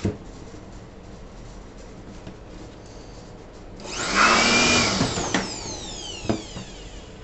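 STAR 850 W electric air blower switched on about four seconds in, blowing with a loud rushing whoosh and a steady motor whine for about a second and a half. It is then switched off, and the motor's whine falls steadily in pitch as it spins down. A single knock comes near the end as the blower is set down.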